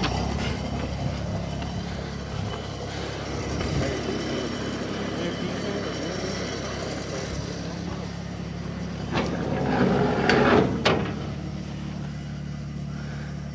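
Truck engine idling steadily, with a brief louder noise about nine to eleven seconds in.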